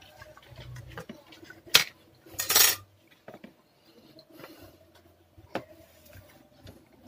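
Small metal hand tools clinking and clattering on a workbench: a sharp click, then a brief scraping clatter, and another click later, with small ticks in between.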